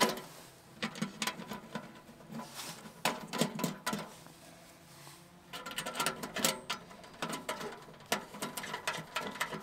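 Light metallic clicks, taps and rattles of a Pomoly Traveller 3 tent wood stove being assembled by hand as the chimney collar is fitted onto the stove top. The clicks come in irregular clusters.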